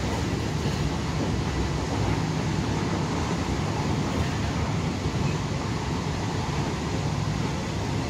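Steady rumble and rush of a moving passenger train, heard from inside the carriage.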